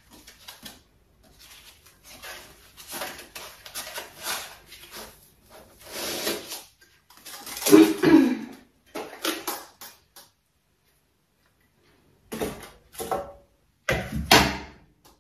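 Hands handling an air fryer oven's metal mesh rotating basket and its white plastic pieces: a run of rustles, scrapes and light clinks, loudest about eight seconds in. After a short pause come a few sharp knocks as the basket is set down on the table.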